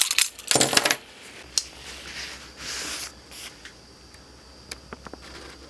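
Handling sounds as a bag of scuba weights is hung from a hook: rustling and a few sharp metal clicks, loudest in the first second.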